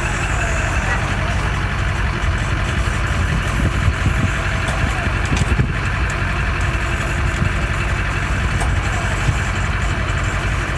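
An engine idling steadily under a low, even hum, with a few light knocks partway through.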